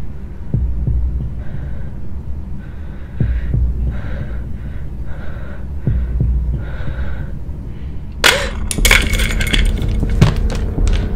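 Horror film sound design: a slow, deep heartbeat, paired thumps every two to three seconds over a low hum. About eight seconds in it breaks into a sudden loud crash with a flurry of sharp cracking hits, a jump-scare stinger.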